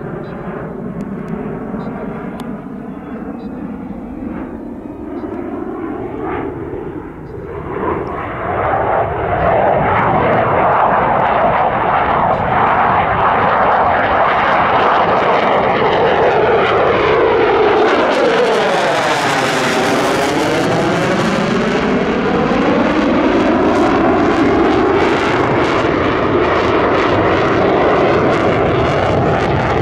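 Jet engine of a General Dynamics F-16AM Fighting Falcon (Pratt & Whitney F100 turbofan) during a display flight. It is much louder from about eight seconds in as the jet comes closer, and its tone sweeps down and back up around twenty seconds in as it passes, with the afterburner lit near the end.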